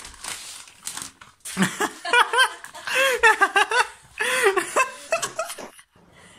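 A person laughing and giggling in short, high-pitched bursts for several seconds, after a light rustling of a plastic bag in the first second or so.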